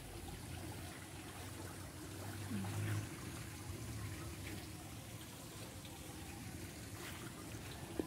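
Quiet outdoor ambience: a faint, steady hiss, with a brief low hum about two and a half seconds in.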